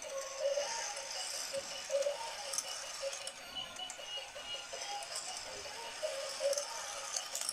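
Motorised plastic toy car-racing track running: its motor-driven lift and swinging toy helicopter whirr while small toy cars click and clatter along the plastic track, a continuous run of small clicks.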